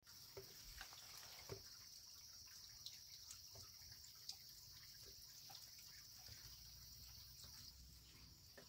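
Very quiet: faint scattered clicks and drips as boiled corn cobs are lifted from the pot with chopsticks into a plastic bowl, water dripping off them, over a steady faint high hiss.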